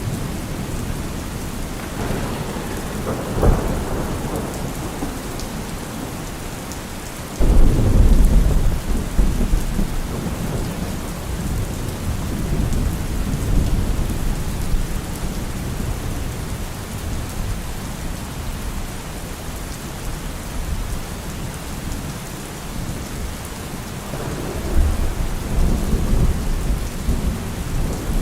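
Steady rain falling, with thunder: a rumble about two to four seconds in, a sudden loud clap about seven seconds in that rolls on and fades over several seconds, and another rumble near the end.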